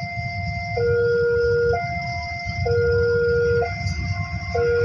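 Electronic two-tone warning alarm alternating between a low and a high tone, each held about a second, over a steady low rumble.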